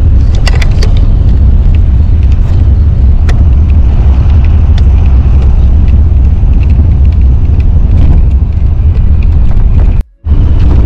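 Loud, steady low rumble of an AC sleeper bus's engine and road noise inside the cabin, with scattered small clicks and rattles. It drops out for a moment near the end.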